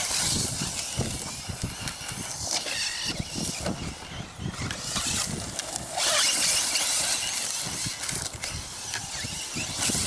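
Electric 1/8-scale RC truggy (HobbyKing BSR Berserker on a 3S LiPo) driving hard over rough, rocky ground: tyres churning dirt and gravel, with many short knocks and clatters from the chassis and suspension hitting rocks. The noise gets louder about six seconds in.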